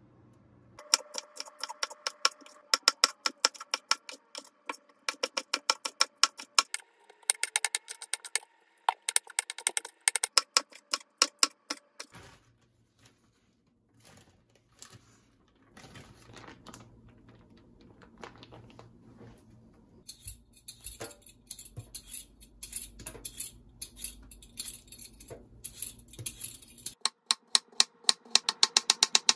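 A kitchen knife chopping quickly on a wooden cutting board in long runs of sharp taps. In the middle come quieter rustling and handling sounds as chopped green chili peppers go into a plastic zipper bag, and near the end the fast knife strokes return, slicing a raw potato on the board.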